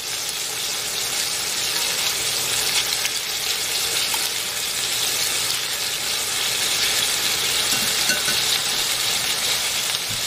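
Chicken pieces searing in lard in a hot cast-iron skillet: a steady sizzle.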